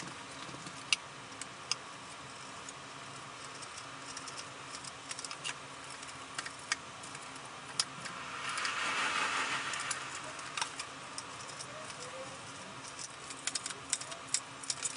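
Knife cutting through pink foam and the foam being handled: scattered small clicks and taps, with a longer scratchy rasp about eight seconds in that lasts around two seconds.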